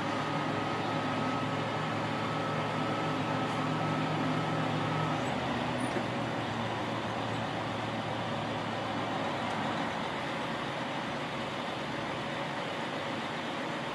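Diesel semi truck running while its hydraulic bale bed tilts up to stand a stack of hay bales on end, with a steady whine over the engine hum. The whine and hum stop about five seconds in, and the truck runs on more evenly.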